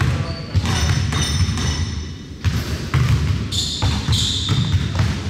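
Basketball game in a gym: the ball bouncing on the hardwood court with repeated thuds, in a large echoing hall, with players' voices now and then.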